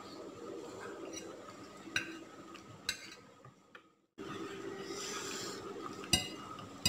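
Fingers picking food from a white plate, with a few sharp clinks against it about two and three seconds in and twice near the end. The sound cuts out for about a second just past the middle.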